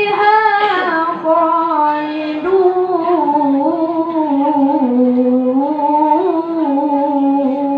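A child reciting the Qur'an in melodic tilawah style, drawing out one long ornamented vowel that wavers and steps between a few pitches without a break.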